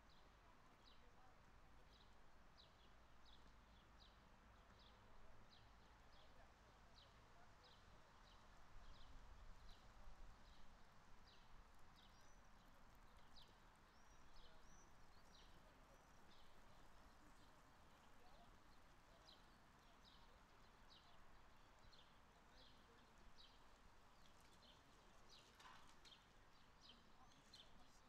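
Faint footsteps on a paved path, light ticks about twice a second, with a pause midway. Birds chirp now and then over a quiet outdoor background.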